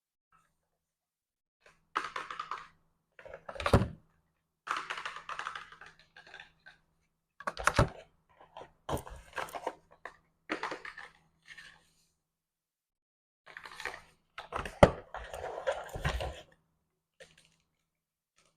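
Hands handling and tapping packaging: bursts of rustling with sharp taps and knocks, broken by short silences, the loudest knocks about eight and fifteen seconds in.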